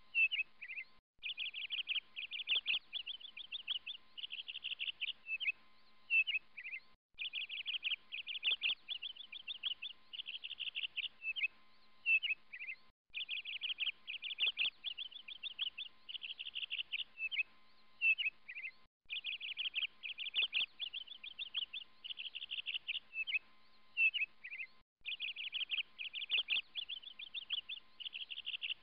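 Small birds chirping and trilling rapidly in a looped birdsong track; the same phrase repeats about every six seconds, with a short break before each repeat.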